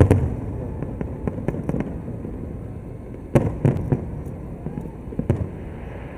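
Fireworks going off: a sharp bang at the start, a quick cluster of bangs about three and a half seconds in, and another bang near the end, over a continuous low rumble of distant bursts.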